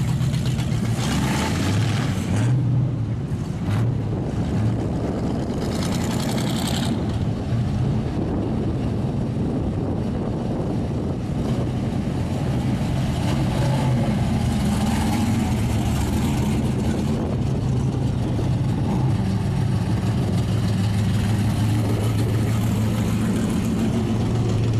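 Race car engines running as the cars roll slowly past one after another, a continuous low engine drone with throttle blips early on, strongest in the second half.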